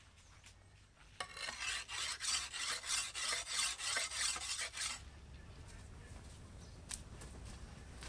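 Rhythmic scraping strokes, about three a second, starting about a second in and stopping about five seconds in. A single sharp click follows near the end.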